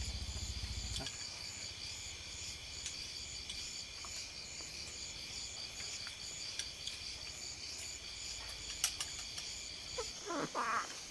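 Chorus of insects trilling steadily at several high pitches, each a fast even pulsing. Near the end a small child's voice starts to babble.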